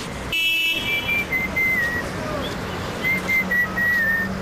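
A person whistling a tune: one thin note that wavers and steps up and down in pitch, broken briefly soon after the start, over street background noise. A low steady hum grows near the end.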